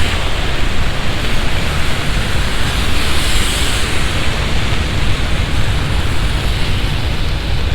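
Heavy rain from a sudden summer downpour: a loud, steady hiss with no break.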